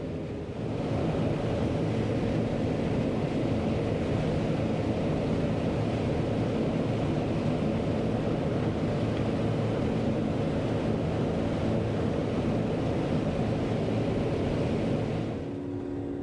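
John Deere 9500 combine running steadily while harvesting corn: a continuous engine and machinery noise with a low hum. It gets louder about a second in and drops back near the end.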